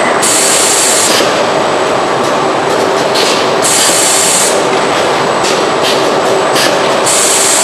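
Continuous din of car-body assembly machinery with a steady whine. Bursts of compressed-air hiss, each about a second long, come three times about three and a half seconds apart, with shorter puffs of hiss between them.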